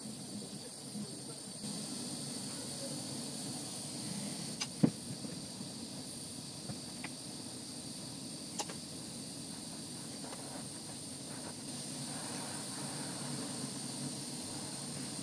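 Gas torch flame hissing steadily while glass is heated in it, with a few sharp clicks of metal tools touching the glass, the loudest about five seconds in.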